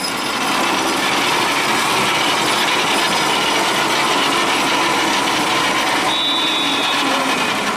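Horse-pull weight truck being dragged along the dirt track by a team of draft horses: a loud, steady mechanical grinding and ratcheting from the truck's gearing that stops sharply near the end.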